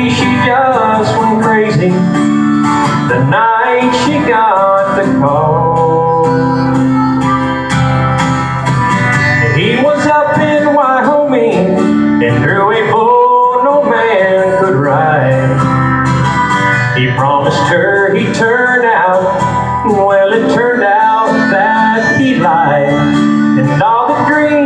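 A man singing a country song to his own acoustic guitar accompaniment, through a microphone.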